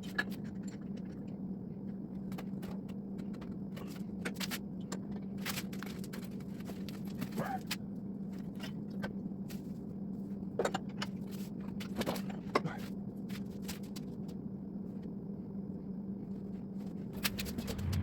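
Steady low hum with scattered sharp clicks, knocks and scrapes of metal, from gas pipe and fittings being worked with a pipe wrench.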